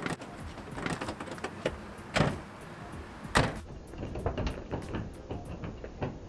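Scattered clicks and knocks, with two louder sharp knocks about two and three and a half seconds in.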